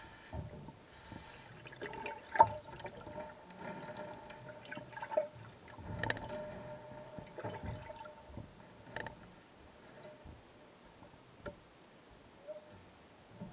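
Water sloshing and dripping around a camera submerged in a shallow tub, with scattered knocks and splashes, the sharpest about two seconds in, over a faint steady hum.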